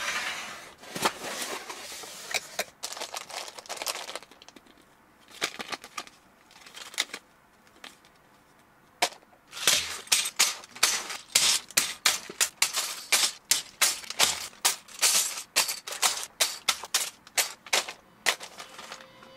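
Sealed plastic bags of building bricks being dropped one after another onto a table, each landing with a crinkle of bag and a clatter of loose plastic pieces, about two or three a second from about nine seconds in. Before that, rustling and handling of the cardboard box and bags.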